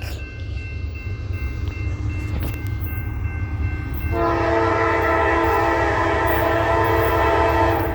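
Diesel locomotive's multi-chime air horn sounding one long steady blast from about four seconds in, stopping near the end, over a low rumble.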